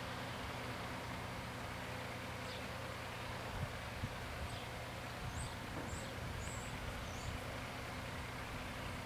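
Outdoor ambience at a closed level crossing: a steady low hum like an idling engine, with a few faint high chirps in the middle and a couple of soft low thumps. No crossing bell or train is heard.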